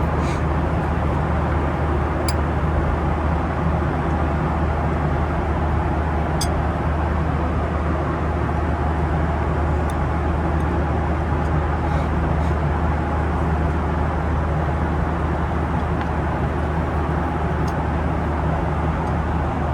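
Steady cabin drone inside a Boeing 737-800 airliner, engine and airflow noise with a strong low hum, unchanging throughout, with a few faint clicks.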